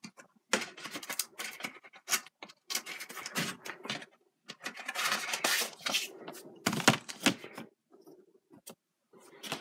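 Plastic Blu-ray cases and their cardboard slipcovers being handled and a printed art card slid out of a case: irregular clicks and taps with short spells of rubbing and sliding.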